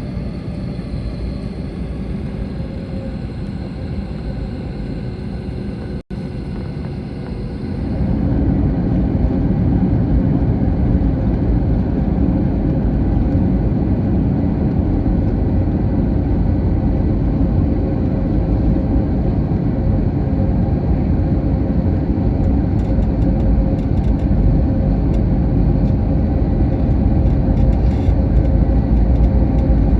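Airbus A321 cabin noise: a steady rumble of engines and airflow with a faint steady hum. It breaks off for an instant about six seconds in, then comes back clearly louder and heavier a couple of seconds later and stays that way.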